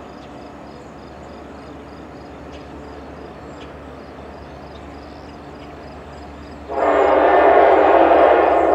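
Air horn of an approaching diesel locomotive, a leased NJ Transit EMD GP40PH-2, sounding a loud blast of several tones together that starts suddenly about three-quarters of the way in, after a faint steady background.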